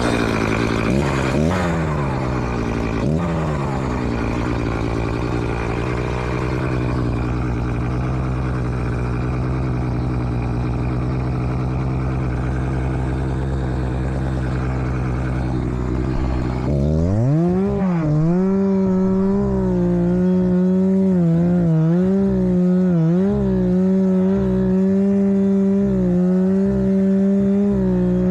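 Chainsaw running at idle with a couple of brief throttle blips, then opened up to full throttle about two-thirds of the way through and held there, its pitch wavering slightly. It drops back off right at the end.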